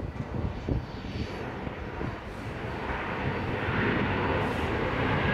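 Jet airliner engines heard from the ground, a steady noise that grows louder and brighter from about three seconds in.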